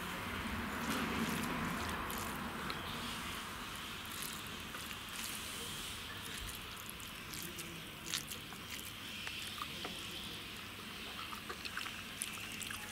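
Fingers mixing cooked rice with green gram dal on a steel plate: soft wet squishing, with scattered light clicks against the metal.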